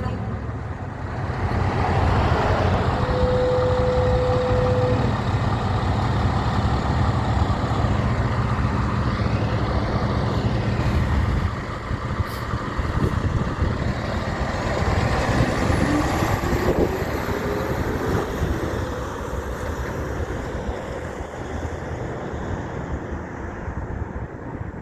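Heavy trucks passing on the road, their engines running loud for about the first half and then fading down into lighter traffic. A steady single tone sounds for about two seconds starting about three seconds in.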